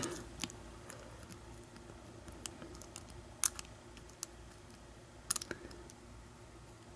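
A few faint, sharp clicks of a lock pick working the pin stack of an American Lock 1100 padlock held in a false set, the strongest about three and a half seconds in and a quick little cluster just after five seconds.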